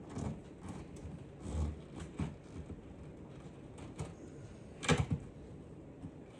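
Scattered clicks and knocks of parts and screws being handled while a console plate is fitted, with a louder double knock about five seconds in.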